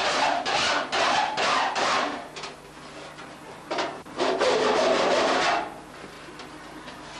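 A hand tool worked in strokes on aluminium sheet: a run of short scraping strokes, about two a second, then after a pause one longer stroke.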